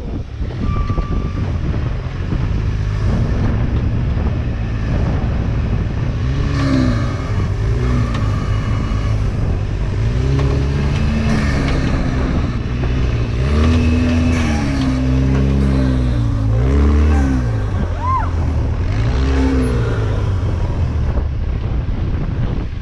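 Rock buggy's engine revving up and down in repeated bursts as it crawls over boulders, with wind buffeting the microphone.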